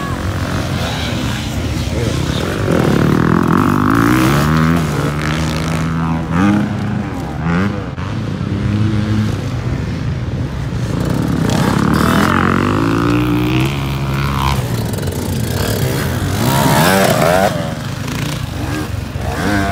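Enduro dirt-bike engine running hard under load, revving up and dropping back, with its pitch climbing and falling twice.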